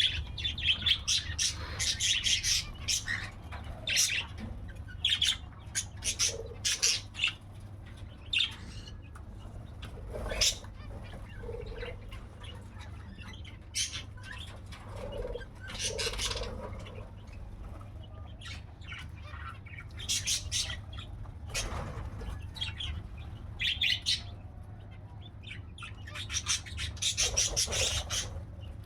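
A mixed flock of aviary birds calling: many short, sharp high chirps and squawks, scattered irregularly with a few lower calls in between, along with wing flapping.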